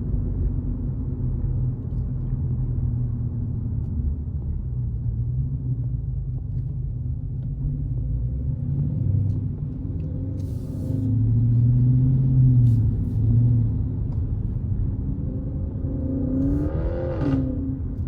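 Car engine and road noise while driving, a steady low drone that swells for a couple of seconds midway. Near the end the engine revs up briefly and falls back.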